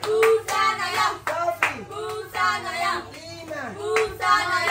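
Several children's high voices calling out and chattering excitedly over one another, with a number of sharp slaps mixed in.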